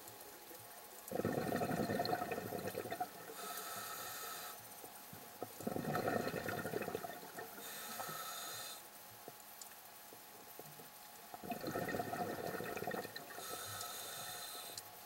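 Scuba diver breathing through a regulator underwater: three loud bursts of exhaled bubbles about five seconds apart, each followed by a quieter hiss from the regulator.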